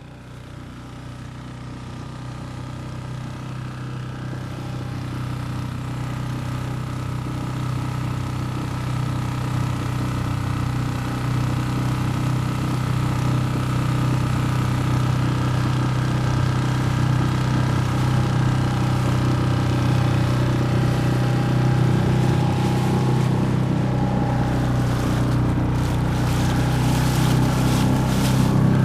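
Outboard motor of a small inflatable boat running steadily under way. The engine note stays level while the sound fades up gradually over the first several seconds and grows a little louder near the end.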